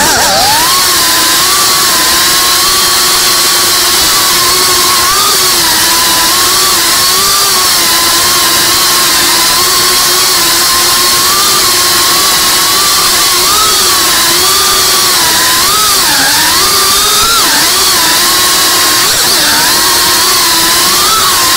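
FPV drone's electric motors and propellers whining over a steady hiss. The pitch wavers up and down as the throttle is worked, with a few quick dips and rises in the last third.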